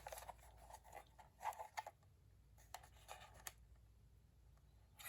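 Near silence with a few faint clicks and rubs of the plastic cordless phone base and handset being handled.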